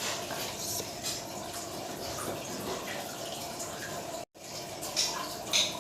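Close-up wet chewing and lip-smacking of someone eating rice and tempe, with a few sharp smacks near the end and a brief break in the sound about four seconds in.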